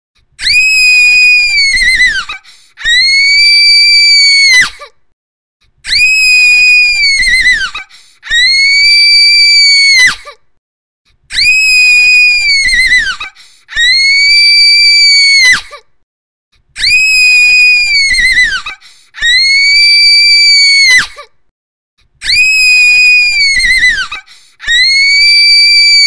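A girl's shrill scream, repeated about ten times in pairs. Each scream lasts about two seconds, holds one very high pitch and drops away at the end.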